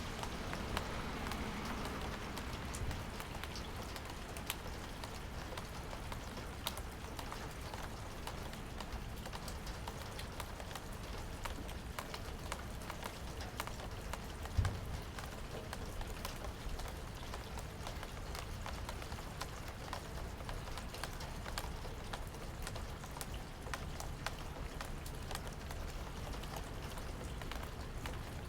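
Steady rain with many separate drops ticking on a surface, and one low thump about halfway through.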